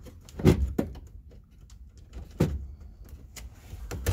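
Sharp plastic clicks and rattles as the blower motor switch's wiring plug is worked off the back of a Ford Festiva's climate control unit. The loudest click comes about half a second in, another about two and a half seconds in, with small ticks between.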